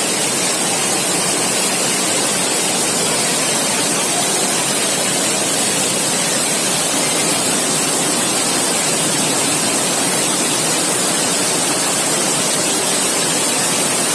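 A steady, loud rush of water, an even hiss strongest in the high range, that cuts off suddenly at the end.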